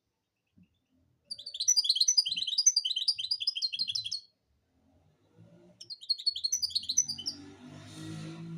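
European goldfinch singing: a burst of fast, high twittering song of about three seconds, then a shorter second burst. A softer rushing noise follows near the end.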